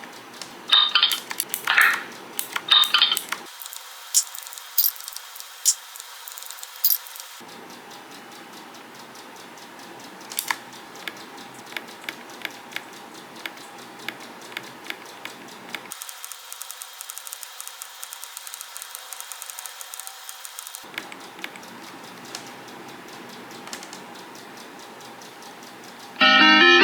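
Clinking and tapping of small hard objects being handled, like cutlery or dishes: a few louder ringing clinks in the first three seconds, then a scatter of light clicks.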